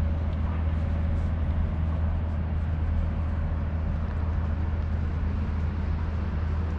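Steady outdoor city ambience: an even, low rumble of distant traffic with no distinct events.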